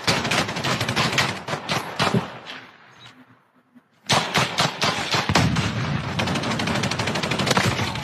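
Rapid video-game gunfire from a first-person shooter clip. It fades out over the first three seconds into a brief near-silent gap, then starts again abruptly about four seconds in as dense, fast shots.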